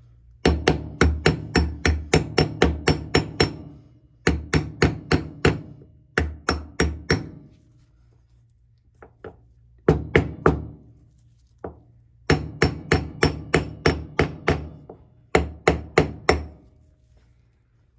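Claw hammer lightly tapping a steel socket to drive a new shaft lip seal into a Bodine motor's housing. The metal-on-metal strikes ring and come in quick runs of about four a second, several bursts with short pauses between.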